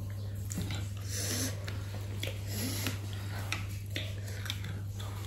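Eating at a table: forks and spoons clicking against plates, with sniffing and breathing, over a steady low hum.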